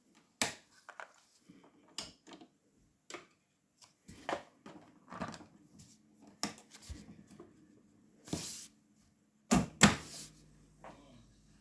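A run of mechanical clicks and clunks from working the controls and cassette compartment of a 1979 Sansui SC-3300 stereo cassette deck. Two heavier clunks come close together near the end, followed by a faint steady hum.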